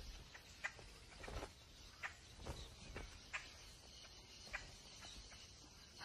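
Vultures pecking and shuffling at a carcass they cannot break open: about seven faint, sharp taps and rustles, irregularly spaced.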